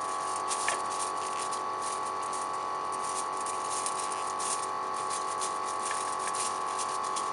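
A steady hum of several pitches from equipment running in the room, with faint scattered rustles and clicks of gloved hands fastening plastic cable ties around a silicone rubber sheet on a stainless-steel holder.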